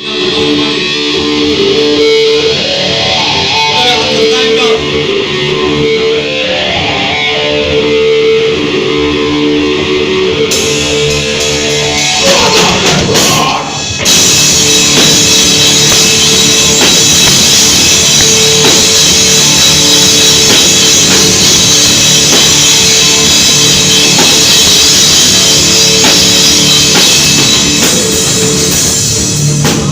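Rock song with guitars and a drum kit. A quieter, guitar-led intro of held notes gives way, after a short build about twelve seconds in, to the full band at about fourteen seconds.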